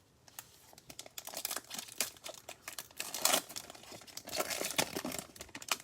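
Plastic trading-card pack wrapper crinkling and tearing as it is opened, with dense, irregular crackles.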